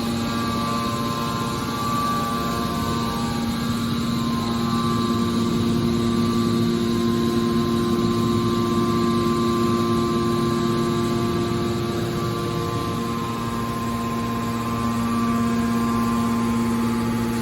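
Metal baler's hydraulic power unit running: a steady machine hum with a higher whine, its tones easing for a couple of seconds about three-quarters of the way through.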